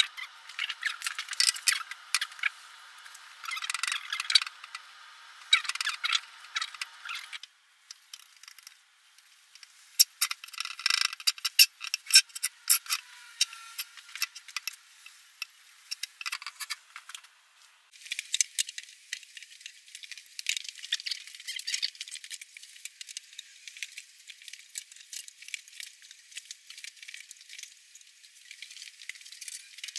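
A paintbrush scraping and swishing over bare and stained wood in short strokes, with scratchy clicks and light rattles. The sound changes suddenly twice.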